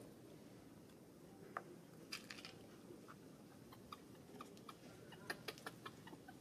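Near silence with faint, scattered small clicks and a quicker run of them about five seconds in: a long-tailed macaque chewing food held to its mouth.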